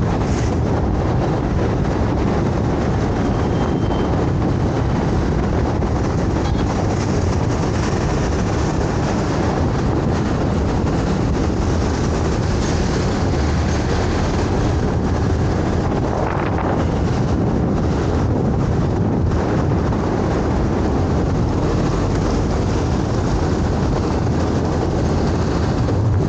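Motor scooter riding along a road: steady wind rush on the microphone over the scooter's engine and tyre noise, with no marked change.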